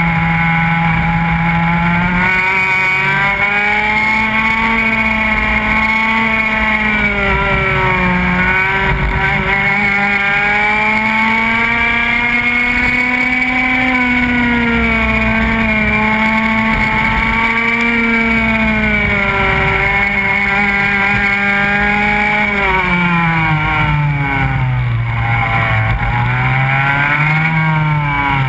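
Go-kart engine running hard on track, its pitch rising on the straights and falling each time the throttle is lifted for a corner: a short dip about a third of the way in and a longer, deeper one near the end.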